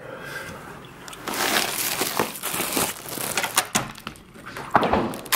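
Rustling and shuffling handling noise with scattered small clicks, then a sharper click near the end as a metal lever door handle is pressed and the latch releases.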